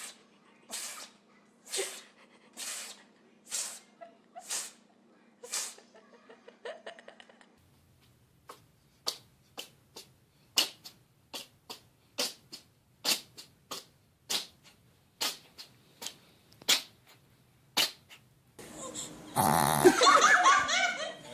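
A pet sneezing over and over in short sharp bursts, about one a second. After a cut comes a quicker run of shorter sneezes, and near the end a louder stretch with laughter.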